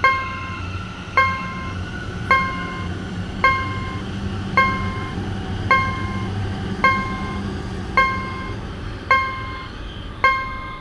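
Japanese railway level-crossing warning bell ringing steadily, one clanging strike a little more than once a second, each ringing briefly and dying away. A low train rumble runs underneath and fades out near the end.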